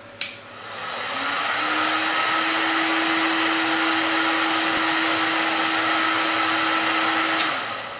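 Heat gun switched on with a click, its fan spinning up over about a second to a steady blowing rush with a hum. Near the end it is switched off with another click, and the rush dies away.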